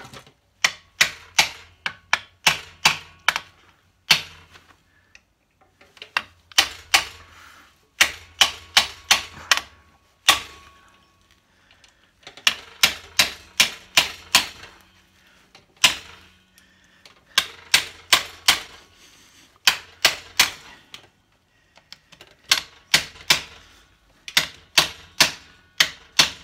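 Hammer striking a hand impact driver to tighten the inner engine-cover screws of a BSA A70 Lightning. The blows are sharp metallic strikes, coming in quick runs of several with short pauses between runs as the driver is moved from screw to screw.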